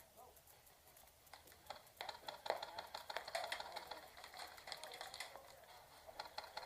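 Irregular, rapid clicking and ticking, denser from about two seconds in, typical of airsoft guns firing and BBs striking across the field.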